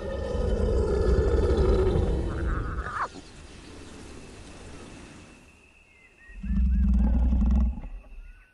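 Lion roaring: a long, deep roar that ends about three seconds in, then a second, shorter deep roar about six and a half seconds in.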